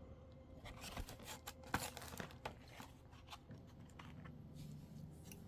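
Faint handling of Pokémon trading cards: scattered light taps and rustles, busiest in the first half.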